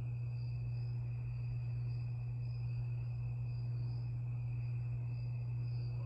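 Harbor Breeze Lakeside II ceiling fan motor running with a steady low hum. It has a bad capacitor that leaves it stuck on low speed.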